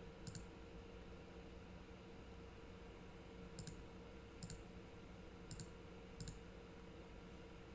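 A handful of faint computer mouse clicks, about five scattered over several seconds, over quiet room tone.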